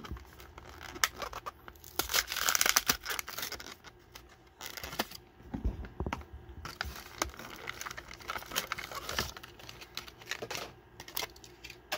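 Clear plastic blister crinkling and cardboard backing card tearing as a diecast car is freed from its Johnny Lightning blister pack, with the loudest tearing about two to three seconds in. A couple of dull knocks come later.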